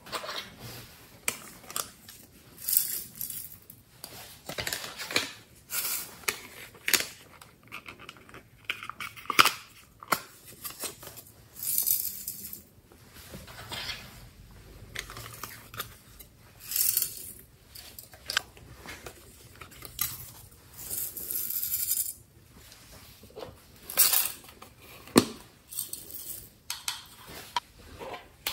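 Glitter, sequins and small confetti shaken and poured from plastic containers onto slime: short hissing rattles of falling glitter every few seconds, with sharp clicks and taps of the plastic containers in between.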